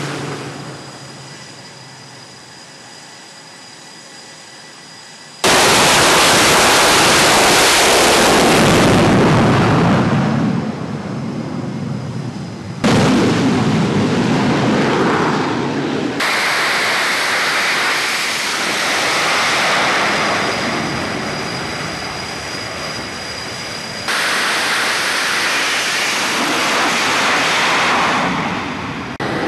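F/A-18 Super Hornet jet engines at high power during carrier catapult launches: loud jet noise with a steady high whine. It fades over the first few seconds, then comes back loud and changes level abruptly several times.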